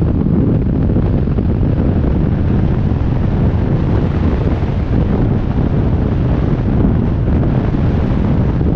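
Harley-Davidson V-twin motorcycle running along the road, heavily covered by steady wind buffeting on the microphone.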